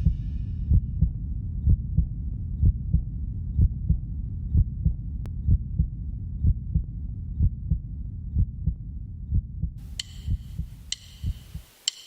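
Heartbeat sound effect: low double thumps about once a second, coming faster and fading near the end, with a few sharp clicks in the last two seconds.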